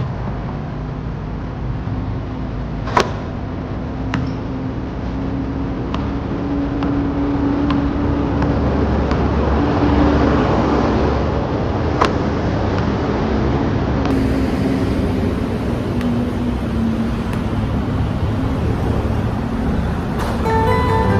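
Steady road traffic rumble, swelling as a bus passes about ten seconds in, with a few sharp knocks of a basketball hitting the court. Guitar music comes in near the end.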